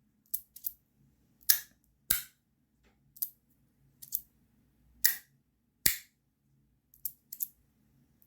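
Modusworks Rapt V2 fidget slider with brass 2x3 Strong magnetic inserts being slid back and forth, its plates snapping into place with sharp magnetic clicks. About ten clicks come at irregular intervals, some in quick pairs.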